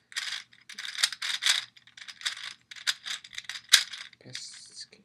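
Plastic Gear Ball puzzle being twisted by hand, its interlocking gears clicking and rattling in short bursts with pauses between turns, the sharpest click a little before the end.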